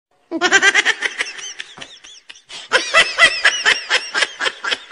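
High-pitched giggling laughter in quick bursts, starting a moment in, easing off about two seconds in, then coming back louder.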